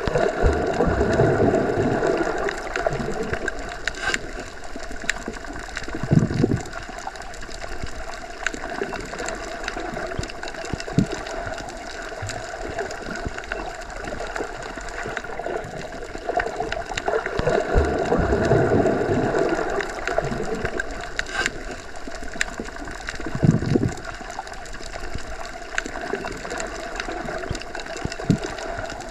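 Underwater ambience: a steady watery hiss and rumble that swells slowly twice, with a few scattered knocks and clicks.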